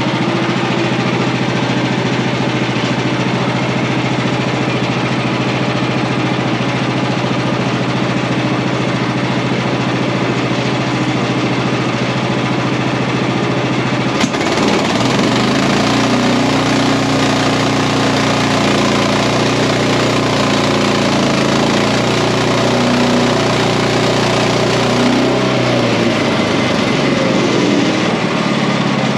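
Portable bandsaw mill's gas engine running with the blade turning. About halfway in there is a click, then the engine note drops and wavers as it labours under load, recovering to its earlier steady pitch near the end.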